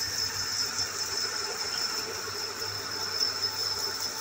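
Steady running of a workshop machine: a low constant hum under a high, even whine that does not change.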